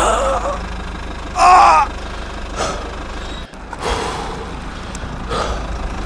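Steady low engine rumble, with two short wavering voice-like cries near the start, the second and louder one about a second and a half in; the sound drops out for an instant about three and a half seconds in.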